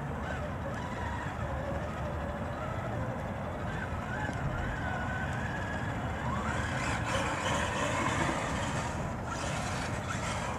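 Redcat Gen 8 RC crawler's electric motor and gears whining as it drives through shallow flood water, the pitch wavering up and down with the throttle and getting louder in the second half. A steady rush of wind and moving water runs underneath.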